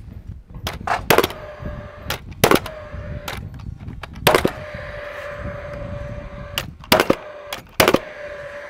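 Paslode XP cordless framing nailer firing nails into overhead lumber: about five sharp, loud shots spaced a second or more apart, with a few fainter knocks between them. A steady whir runs between the shots, typical of the fan these fuel-cell nailers run after firing.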